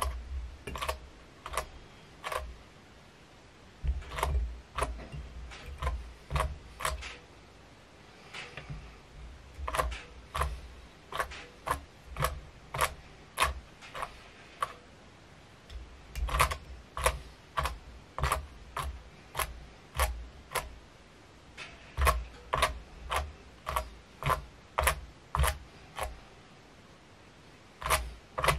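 Runs of sharp, evenly spaced clicks, about two a second, with dull low thuds under them, from winding material around a hook at a fly-tying vise. The runs break off for a second or two every few seconds.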